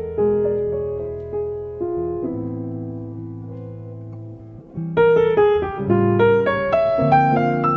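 Piano music: single notes and chords that ring and fade, growing softer, then louder and brighter again about five seconds in.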